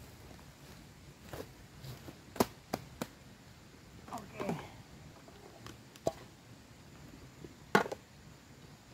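Handling noise from a plastic sheet and a plastic bag: scattered sharp clicks and knocks with light crinkling as the sheet is spread on the ground and cooking things are taken out of the bag and set down.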